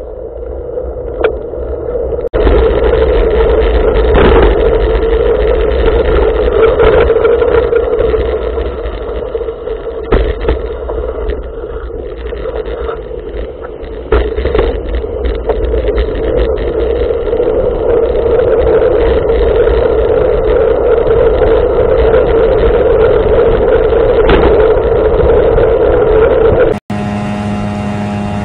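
Riding noise from a bicycle moving at speed: steady wind and road rush on a handlebar camera with a hum, and a few knocks. Near the end it cuts to a small Johnson outboard motor running steadily on an inflatable boat.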